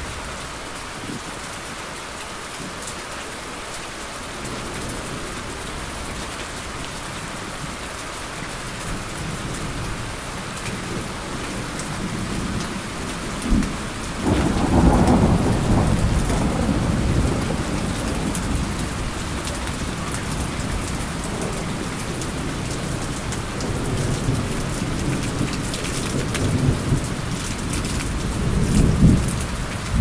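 Steady rain falling with thunder. About halfway through comes a sharp clap followed by a long low rumble, and more rolling thunder builds near the end.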